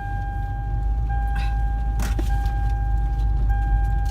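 Car cabin noise while driving on snow-covered roads: a steady low road-and-engine rumble, with a thin steady high-pitched tone running over it and one sharp click about two seconds in.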